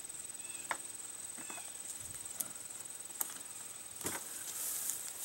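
Gear being handled in a plastic kayak's cockpit: a few light clicks and knocks, then rustling from about four seconds in, over a steady faint high whine.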